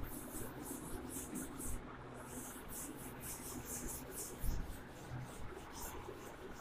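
Chalkboard being wiped with a duster: a faint scratchy swish with each quick stroke, about two or three strokes a second.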